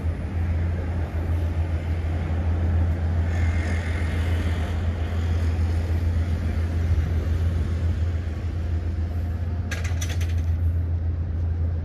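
City street traffic: a steady low rumble of road vehicles, with a brief cluster of sharp clicks or rattles about ten seconds in.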